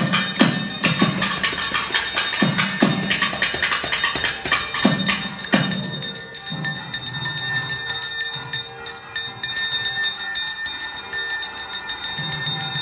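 Temple ritual music during an aarti: drum strokes over steady ringing of bells. The drum strokes stop about six seconds in, leaving the bells ringing on.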